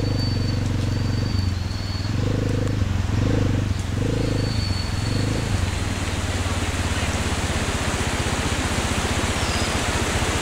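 Motorcycle engine running, with a steady rushing noise taking over about halfway through.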